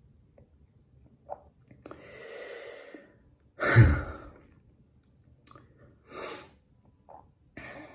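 A man breathing and sighing in a pause between sentences: a long soft breath in about two seconds in, then a louder sigh with some voice in it, and another short breath near six seconds.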